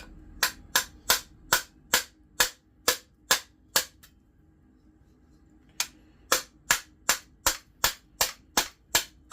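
Hammer striking steel on the Jeep YJ body, about two to three controlled blows a second: a run of about nine, a short pause, then about ten more. The hammering flattens metal that rust has swollen, where the door is hitting.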